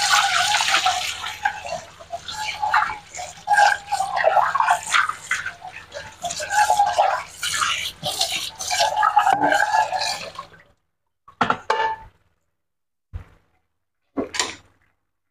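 Fish-and-tomato sauce simmering in a wok, bubbling and popping densely over a low steady hum, cutting off abruptly about ten and a half seconds in. A few brief separate sounds follow near the end.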